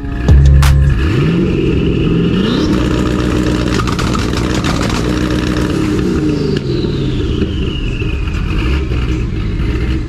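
C6 Corvette V8 revved up and held against its two-step launch limiter for a few seconds, the note steady and stuttering with rapid pops, then dropping back toward idle.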